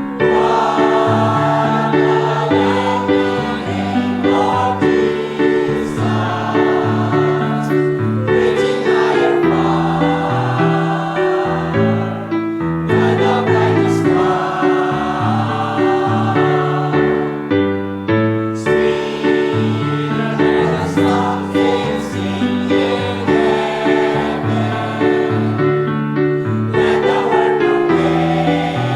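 A church choir singing a gospel song in parts, with instrumental accompaniment.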